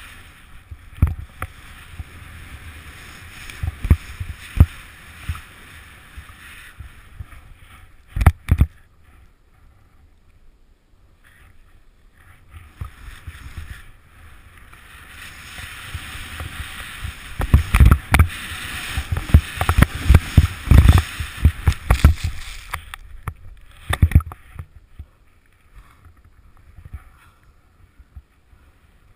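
Powder snow rushing and hissing under a rider descending a steep slope, with heavy thumps from turns and bumps. It is quieter for a few seconds about a third of the way in, and busiest and loudest for several seconds past the middle.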